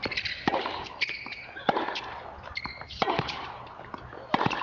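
Tennis rally: sharp racket strikes on the ball about every second and a quarter, with the ball bouncing on the court between them.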